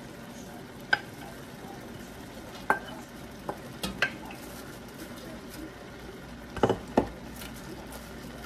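Stir-fry vegetables sizzling steadily in a stainless steel pan, with sharp clacks of a wooden spatula against the bowl and pan as shredded cabbage is scraped in and stirred. The loudest knocks come in a quick cluster about two-thirds of the way through.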